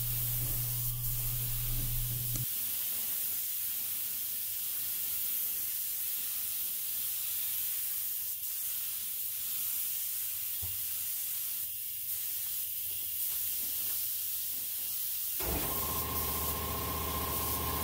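Mini HVLP gravity-feed spray gun (Neiko 31207A) spraying base coat: a steady hiss of compressed air atomising paint at the nozzle. A low hum stops about two seconds in, and a held musical tone comes in near the end.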